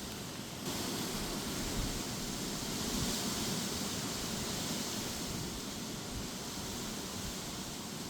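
Gusty wind with rain: a steady rushing hiss that picks up sharply about a second in, swells, then eases slightly, over an uneven low rumble.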